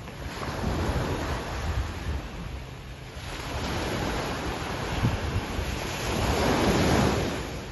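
Ocean waves washing onto a beach, the sound swelling and fading in slow surges, with wind rumbling on the microphone.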